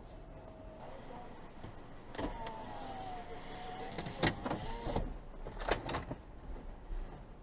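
Car power window motor whining for about three seconds, dipping slightly in pitch as the glass travels, with clicks as it starts and stops and a couple of knocks shortly after, over a low rumble of the car.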